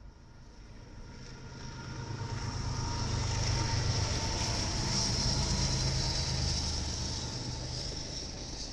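BNSF diesel locomotives lead a double-stack container train past at close range. The engine sound swells to a peak about halfway through and then eases off, with a steady high hiss over it.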